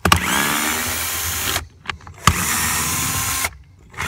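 Bosch cordless drill/driver with an 8 mm socket spinning out the blower motor's mounting screws in two runs of a little over a second each, with a short pause between. The motor's pitch rises as the first run starts.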